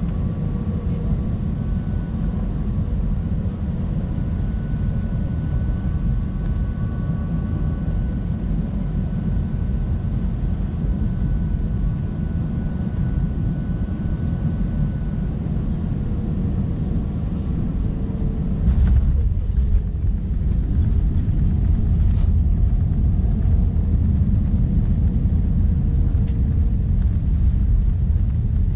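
Cabin noise of an Airbus A320-214 with CFM56 engines on descent: a steady low rumble of airflow and engines with a faint engine whine. About two-thirds of the way through a knock and the rumble grows louder, typical of the main wheels touching down, with a second knock a few seconds later.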